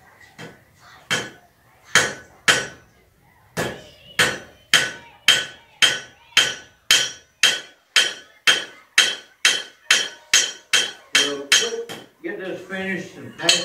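Blacksmith's hammer striking hot iron on an anvil, each blow ringing: a few scattered blows, then a steady run of about two strikes a second that stops near the end.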